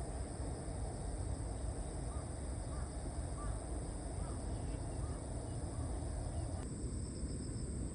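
Outdoor ambience: a steady low rumble of wind with a steady high insect drone, and a few faint short bird calls in the middle. The background changes abruptly about two-thirds through.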